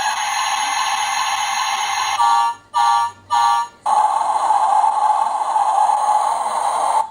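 Electronic truck engine sound effect from a toy Cars hauler truck, played through its small speaker after its button is pressed. The steady sound breaks into three short pulses about two seconds in, then runs on and cuts off sharply near the end.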